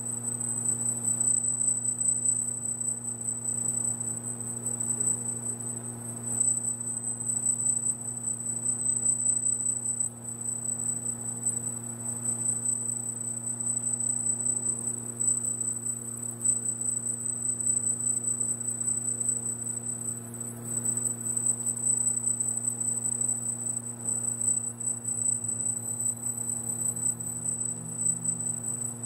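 Laser marking machine running while it engraves lettering into a polished metal panel: a steady high-pitched whine over a low, even electrical hum.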